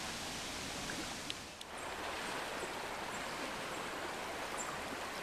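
Steady rushing of a river flowing fast in high water, with a brief dip about a second and a half in.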